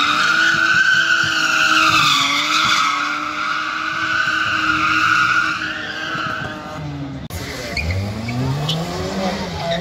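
Car drifting around cones: the tyres squeal in one long, slightly wavering screech over an engine held at steady high revs. After an abrupt cut about seven seconds in, another car's engine revs up and down as it comes down the course.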